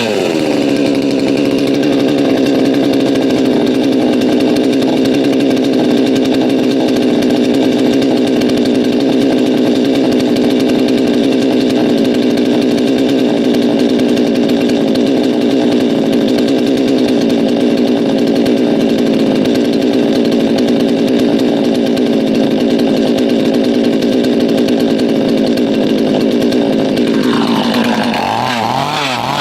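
Chainsaw cutting through firewood. Its engine pitch drops as the chain bites in and stays low and steady, labouring through the cut, then rises again near the end as the saw comes free.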